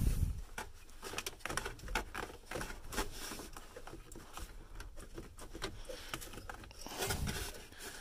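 Irregular small plastic clicks and scrapes as a hand works the turn-signal flasher relay loose from its socket behind the dash trim, with a louder rustle near the end.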